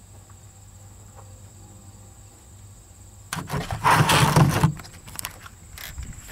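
Faint steady hum, then about three seconds in a loud rustling and scraping as the camera is picked up and handled right against its microphone for a second and a half, followed by a few lighter knocks as it is carried.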